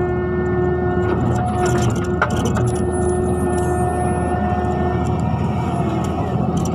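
Mini excavator at work: its diesel engine runs steadily under a whine that drops in and out, with a few sharp knocks, one about two seconds in.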